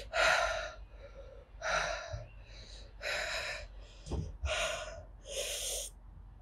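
A woman breathing hard through her mouth, about six sharp breaths roughly a second apart: panting from the chilli burn of Carolina Reaper peppers in her mouth and throat.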